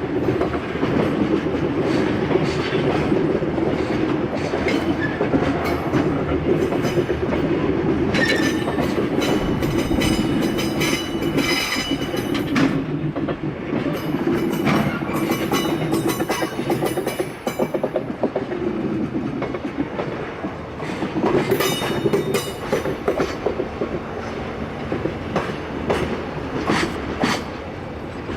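A freight train running past, its wheels clattering over the rail joints in a continuous rumble. High-pitched tones rise above it twice, about a third of the way in and again around three quarters of the way through.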